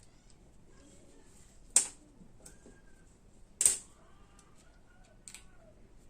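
Two sharp metal clacks about two seconds apart, with a few lighter ticks near the end: small ratchet parts and tools being handled and set down during disassembly.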